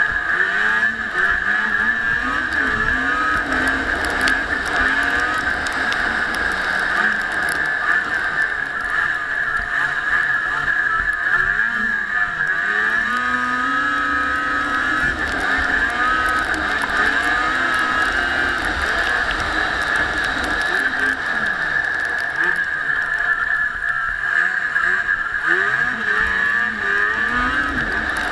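Snowmobile engine running under way, its pitch rising and falling again and again with the throttle, over a steady high whine and hiss.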